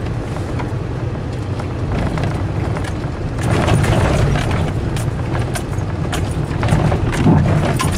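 Mitsubishi Pajero 2.5's engine pulling under load off-road, heard from inside the cab, with scattered knocks and rattles from the body. The engine gets louder about three and a half seconds in.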